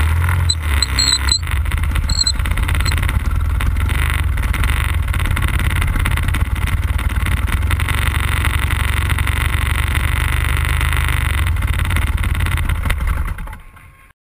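The 100cc petrol engine of a large-scale radio-controlled Cessna 182 Skylane, running steadily, then fading out near the end.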